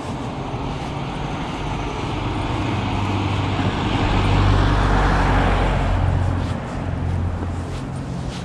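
A car driving past on the street: engine and tyre noise build up, peak about halfway through, then fade away.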